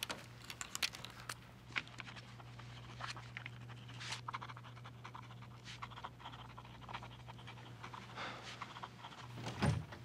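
Pen scratching across paper in quick, uneven strokes over a steady low hum, with a dull thump near the end.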